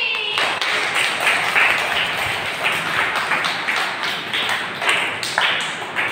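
A group of children clapping in time, about two to three claps a second, starting just after their song ends.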